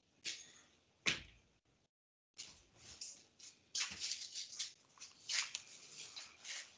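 Scattered sharp clicks, then a run of rustling, scratchy noise. The sound cuts out completely for a moment about two seconds in.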